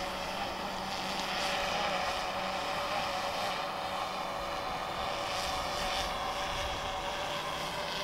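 Small quadcopter drone hovering, its propellers giving a steady, high-pitched buzz that swells slightly twice.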